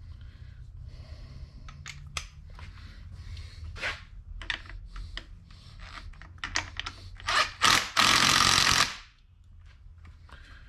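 Clinks and knocks of sockets and tools on a transmission, then an impact wrench fires in two short blips and runs for about a second, running down bolts before they are torqued by hand.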